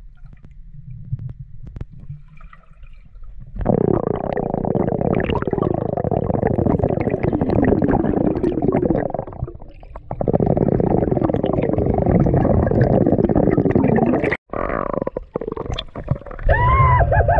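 Muffled rumbling and gurgling of river water moving around an underwater camera as a snorkeler swims along the bottom. It is quieter for the first few seconds, then runs loud in two long stretches with a brief dip between them, and cuts out abruptly near the end, followed by a few short, muffled wavering tones.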